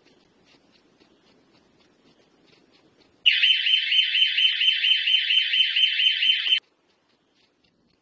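Electronic alarm siren sounding a high-pitched pulsing tone, about five pulses a second, for a little over three seconds. It starts a few seconds in and cuts off suddenly.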